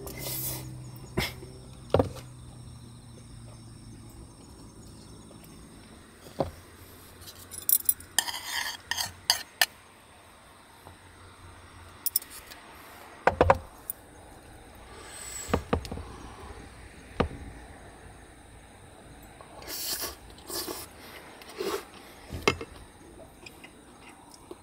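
A metal spoon clinking and scraping in a wooden bowl, with scattered knocks of tableware set down on a wooden table.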